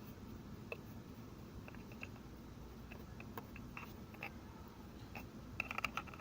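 Faint, scattered ticks and clicks as a brush works around the spark plug wells, with a quicker run of clicks near the end.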